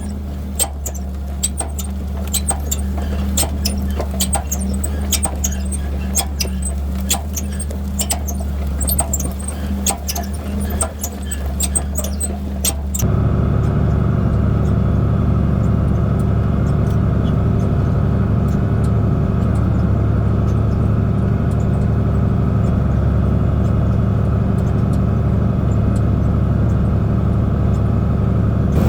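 Tractor diesel engine running steadily while pulling a disk, with rapid clicking and rattling over it for the first part. About 13 seconds in the sound changes abruptly to a steadier, fuller engine note without the rattle.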